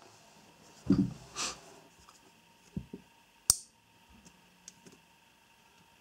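Small objects handled on a wooden desk: a soft rustle about a second in, then a few light clicks, the loudest a single sharp click about three and a half seconds in, followed by faint ticks.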